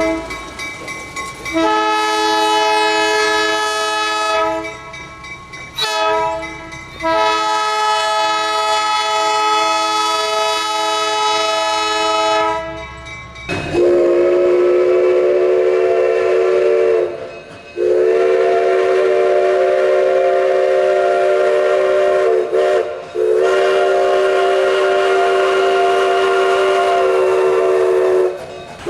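A locomotive air horn sounds a steady multi-note chord in two long blasts. About 13 seconds in, it gives way to a steam locomotive's chime whistle, a lower, breathier chord blown in three long blasts.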